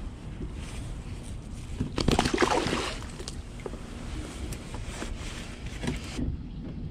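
Low wind and water rumble on the microphone from a kayak, with a short, loud splashing burst about two seconds in as a tautog is let go over the side.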